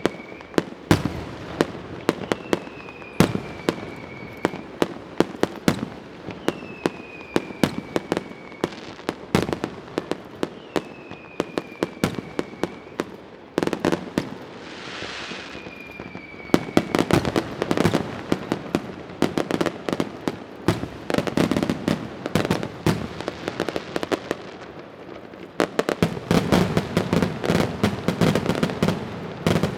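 Fireworks going off in rapid, dense bangs and crackle. In the first half a short falling whistle comes back every few seconds; past the middle the bangs thicken into near-continuous volleys.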